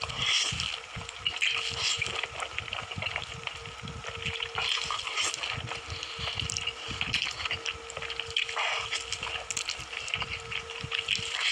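Close-miked eating: wet chewing with many small clicks and crackles, over a steady faint hum.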